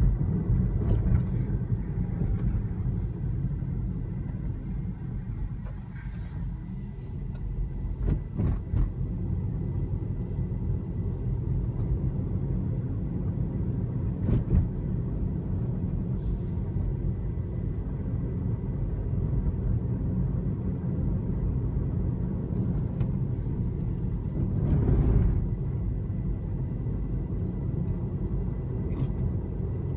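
Road and tyre noise inside a Tesla Model 3 electric car's cabin while driving, a steady low rumble with a few light knocks and a brief louder swell about 25 seconds in.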